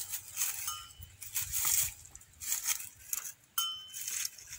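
Donkey pulling at and chewing cane grass, with irregular crunching and rustling of the dry stalks. Two brief metallic clinks ring out, one under a second in and one about three and a half seconds in.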